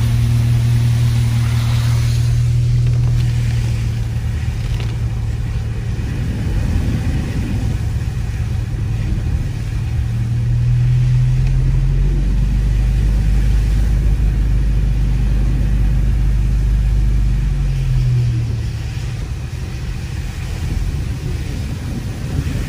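Car engine and road noise heard from inside the cabin while driving on a snowy road: a steady low drone that rises in pitch about eleven seconds in and drops back and gets quieter about eighteen seconds in.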